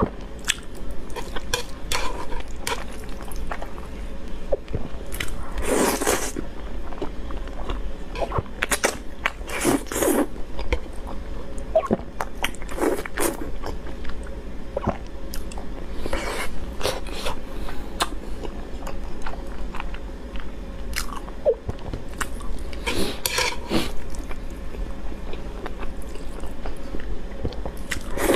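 Close-miked eating: a person chewing soft braised eggs and sauced noodles, with many small wet mouth clicks and, several times, a louder slurp of noodles.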